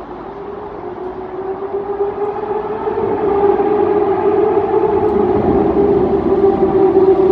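Kawasaki ZX-10R inline-four engine held at high revs as the bike approaches through a tunnel: a sustained high-pitched wail that climbs slightly in pitch and grows steadily louder, echoing off the tunnel walls.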